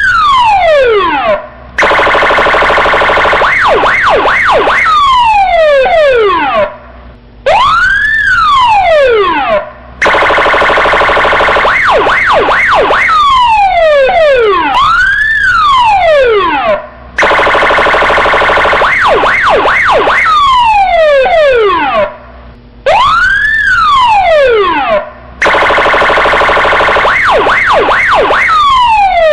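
Electronic police siren cycling through its tones: a slow rise and fall in pitch, a steady harsh buzzing tone lasting about three seconds, then a few quick warbles, with the sequence repeating about every seven and a half seconds.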